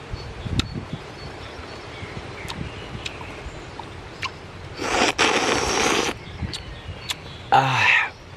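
A man eating a grilled mussel straight from the shell: a few small clicks, then about a second of loud airy mouth noise at the shell in the middle, and a short voiced sound from him near the end, over a steady background hiss.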